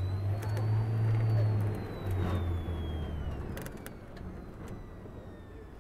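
Bus engine running in city traffic: a steady low hum that drops away after about three and a half seconds, with a faint high whine that rises and then falls.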